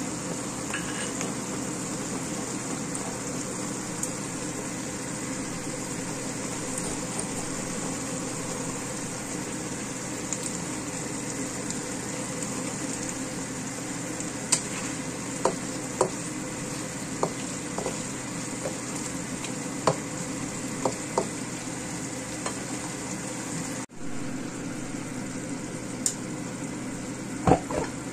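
Wok of fried fish and sambal sauce sizzling and simmering on the stove: a steady sizzle, with scattered sharp clicks from about halfway on.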